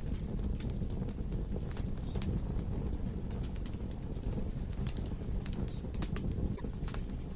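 Wood logs burning in a fireplace: a steady low rumble of the flames with irregular sharp crackles and pops, several a second.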